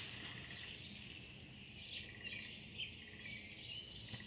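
Small birds chirping: many short, high calls scattered throughout, with a couple of brief rapid trills, over faint outdoor background noise.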